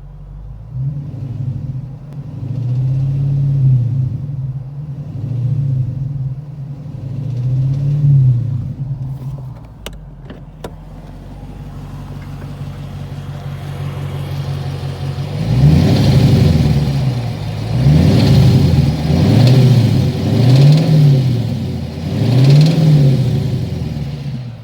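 2009 Dodge Challenger SRT8's 6.1-litre Hemi V8 blipped from idle: about four revs, a quieter spell at idle, then five louder, quicker revs near the end. The engine carries a knock later traced to a worn cylinder #8 connecting-rod bearing.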